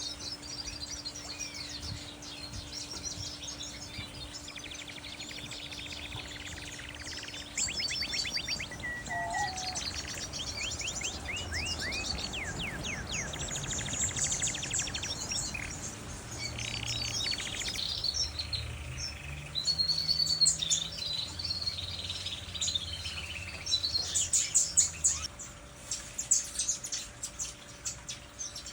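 A flock of small aviary birds chirping, trilling and whistling together in a busy, overlapping chorus, with the loudest bursts of calls in the last third.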